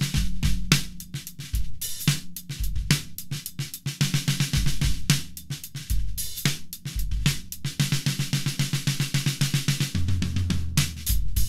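Drum kit played with a 14x10 deep segmented yellow pine snare drum: fast snare strokes and quick runs over bass drum hits, with cymbals washing through the second half.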